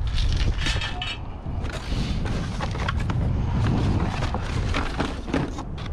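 Cords and coaxial cable being pulled and handled in a pile of scrap: scattered clicks, rustles and knocks over a steady low rumble.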